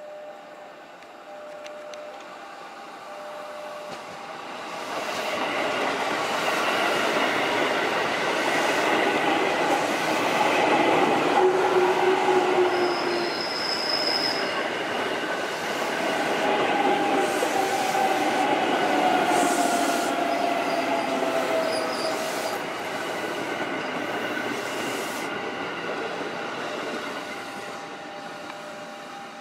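KRL Commuterline electric commuter train running past at close range: wheels clatter over rail joints with steady whining and squealing tones over the rumble. It swells up about five seconds in, stays loud through the middle, and fades near the end.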